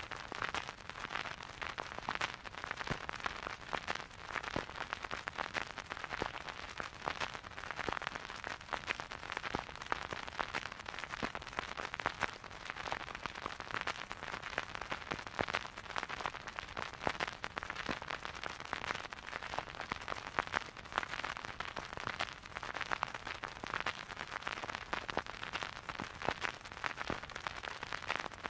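Vinyl record surface noise: a steady hiss thick with fine crackle and scattered sharper pops as the stylus rides the groove, with no music playing.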